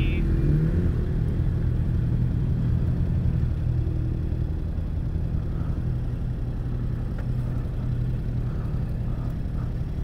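Yamaha MT-07's parallel-twin engine running at fairly steady revs while riding.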